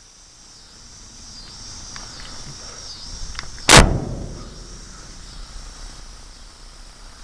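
Insects chirping steadily in a high-pitched chorus, broken once about three and a half seconds in by a single loud, sharp bang with a short low rumble after it.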